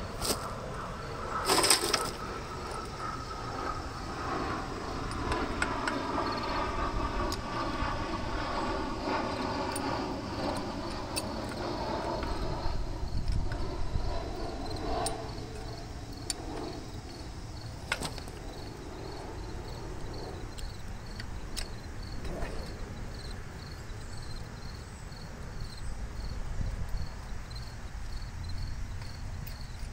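A few sharp clicks and taps of painted sheet-metal engine parts being handled and fitted, over a distant engine that swells and fades over the first half. Insects chirp steadily in the background.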